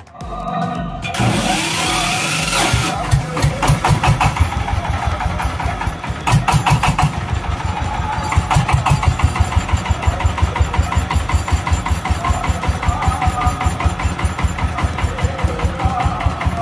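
Power tiller's diesel engine starting up, with a loud hiss for the first couple of seconds, then running at a steady idle with an even, pulsing beat.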